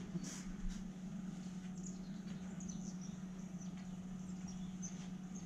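Faint clicks and small high squeaks of a Honda Magna 750's metal carburetor parts being handled and fitted together, over a steady low hum.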